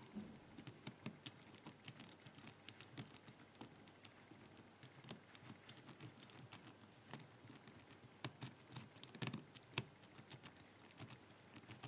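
Faint, irregular clicking of a four-wheel combination padlock's number wheels being turned one position at a time, with a few sharper clicks among them.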